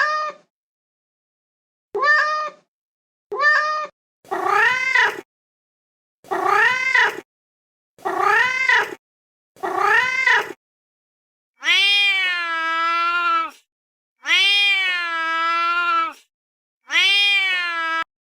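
A cat meowing again and again, about ten separate meows with silent gaps between them. The first several are short and rise then fall in pitch; the last three, from about two-thirds of the way in, are longer and drawn out.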